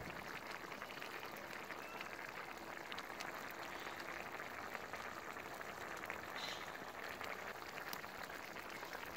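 Tomato sauce with chicken wings simmering in a wide pan: a steady fizz of many small bubbles popping.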